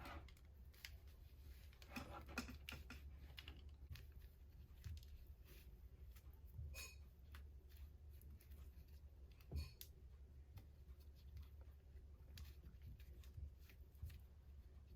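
Near silence: faint, irregular clicks and small taps of hands handling things, over a low steady hum.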